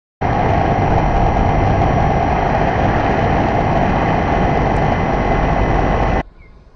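RC model airplane's motor and propeller running steadily at close range: a loud even rush with a steady hum through it. It starts abruptly and cuts off about six seconds in, leaving a much fainter sound.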